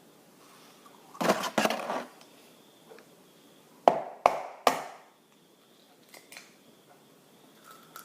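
Eggs being knocked against a mixing bowl to crack them: a short clatter about a second in, then three sharp knocks about four seconds in.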